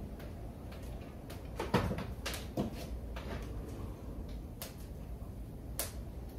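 A few scattered sharp knocks and clicks, the loudest about two seconds in, over a low steady rumble.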